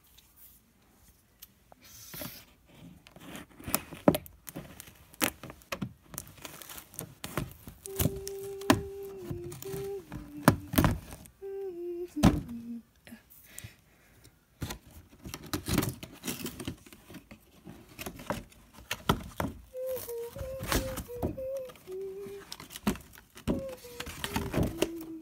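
A box and its packaging being cut and worked open with scissors: a string of clicks, snips and knocks. A person hums a tune in two stretches, one about a third of the way in and one near the end.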